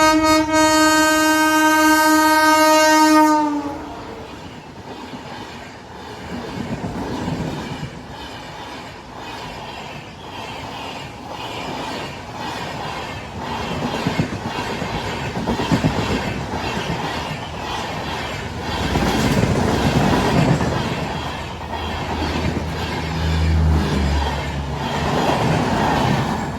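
WAP-5 electric locomotive's horn sounding one long blast of about three and a half seconds, then the Garib Rath Express passing at speed, its wheels clattering over the rail joints in a steady rhythm.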